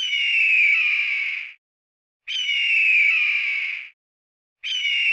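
Hawk screeching: a raspy scream that slides down in pitch and lasts about a second and a half. It is repeated about every two and a half seconds: two full screeches, then a third that starts near the end.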